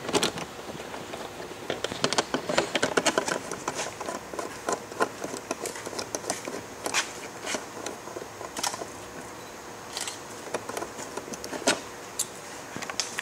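Scattered light metallic clicks and taps, some in short clusters, from a hand socket driver working on the fasteners holding a motorcycle's tail fairing as they are unscrewed and removed.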